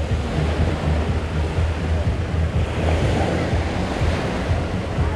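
Sea waves washing onto a beach, mixed with heavy wind buffeting the microphone in an uneven low rumble.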